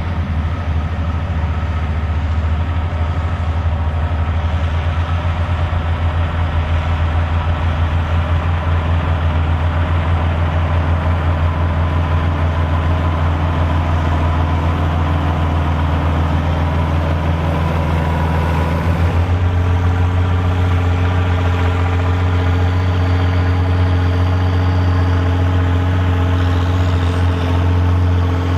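Diesel engine of a Volvo BM tractor running steadily at ploughing work. About two-thirds of the way through, the engine note changes abruptly to a different steady pitch.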